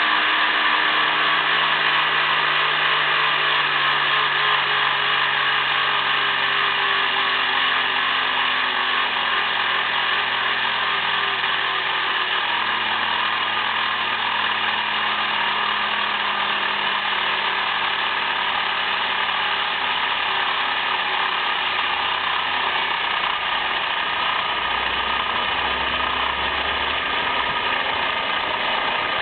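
Volkswagen VR6 narrow-angle V6 engine running at idle with a steady high-pitched whine or buzz over it, the noise the owner finds strange; the engine's pitch wanders slowly up and down.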